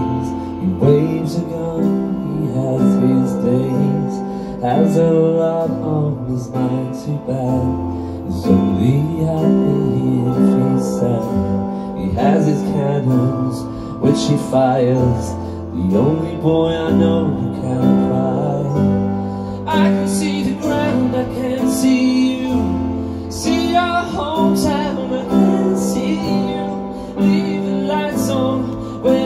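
Live band performance: a male singer with strummed acoustic guitar and keyboard accompaniment, sung melody over steady held chords.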